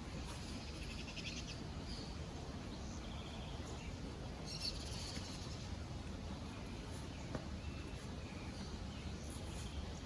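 Birds chirping and calling: a quick trill about a second in, and a brighter run of calls around the middle, over a steady low background rumble.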